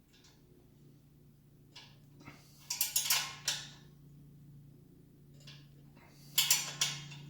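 Short clusters of metallic clicks and clinks from hand tools working the exhaust mounting hardware, one group about three seconds in and another near the end, over a low steady hum.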